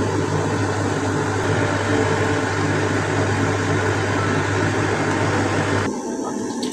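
A steady mechanical hum, like a kitchen appliance or motor running, that cuts off suddenly about six seconds in.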